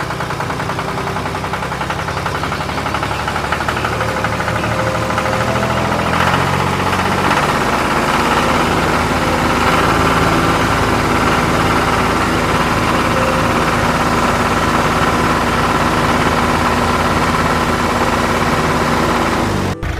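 An engine running steadily with a fast, even pulse, growing slightly louder about a third of the way in.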